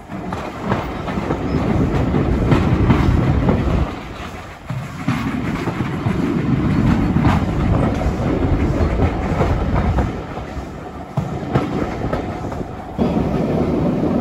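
Heritage steam train's wooden carriages running along the track: a steady rumble with scattered clicks of the wheels over the rail joints, easing off briefly twice.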